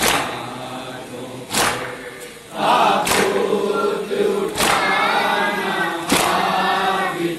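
Group of men chanting a Shia nauha in unison, with matam chest-beating strikes landing together about every second and a half.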